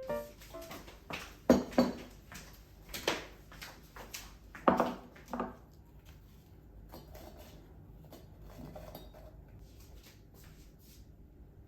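Kitchen clatter: dishes and utensils knocking against each other, with a handful of louder clanks in the first half and lighter clinks after.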